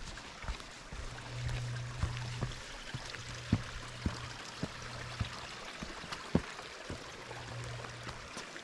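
Heavy breathing with irregular footstep thuds every half second to a second over a steady rushing noise.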